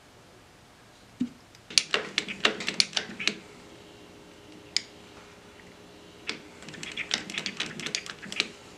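Two quick runs of light, sharp clicks and taps, most likely a Harley-Davidson front brake master cylinder lever being pumped to bleed air out of the system.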